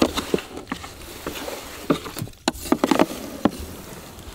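Soan papdi being worked by hand: wooden sticks pull and fold sticky sugar-syrup strands through warm ghee and flour, giving a string of irregular small wet clicks and ticks.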